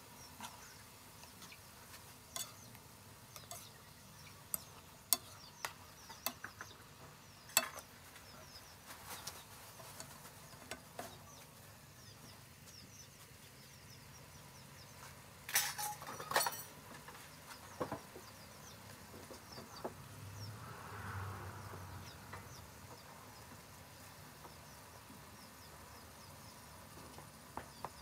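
Spoon and spatula clicking and knocking against a nonstick frying pan of mushrooms cooking in oyster sauce, with scattered single taps and a quick run of knocks about halfway through, over a faint steady background.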